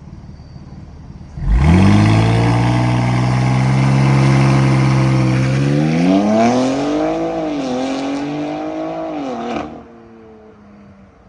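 BMW X3M's twin-turbo inline-six, running through newly fitted catless downpipes, bursts into a loud start about a second and a half in with its note sweeping up and then holding steady. It is then revved up and down twice before cutting off sharply near the end.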